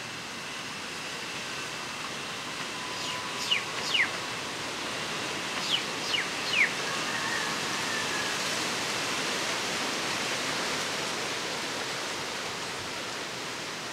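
Steady high outdoor hiss, with a bird giving quick, sharp falling chirps: two about three and a half seconds in and three more around six seconds.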